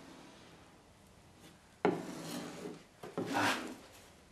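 A putty knife scraping across a resin-wetted fiberglass cloth patch on a boat hull, spreading the resin: two short scraping strokes, the first about two seconds in and the second about a second later.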